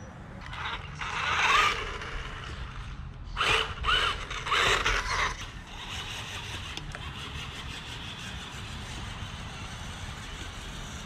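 The 1984 Tamiya Grasshopper RC buggy's Tamiya Sport Tuned electric motor and gearbox whining in four short throttle bursts in the first five seconds or so, the pitch rising and falling with each burst as the buggy drives away.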